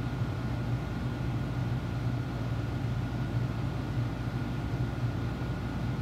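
Steady low background hum with a faint thin whine above it, unchanging throughout; no speech.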